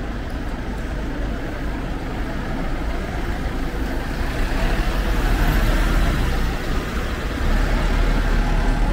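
Road traffic on a city street: motor vehicles passing close by, a steady rumble with tyre hiss that swells louder about halfway through and again near the end.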